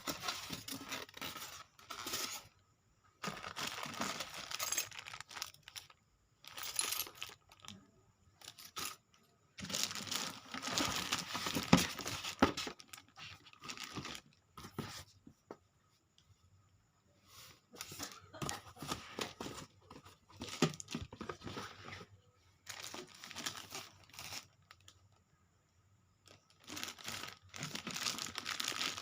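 Packaging being torn open and crinkled by hand, in irregular bouts of tearing and rustling separated by short pauses.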